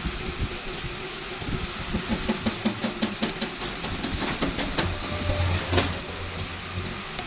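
Small clicks and knocks of plastic tap parts being handled and fitted together by hand, over a steady background hiss. A low hum comes in for about a second around five seconds in.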